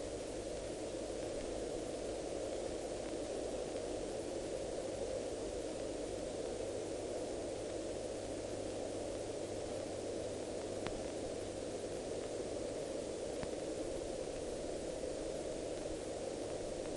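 Steady hiss-like noise with a low hum underneath, and two faint clicks near the middle.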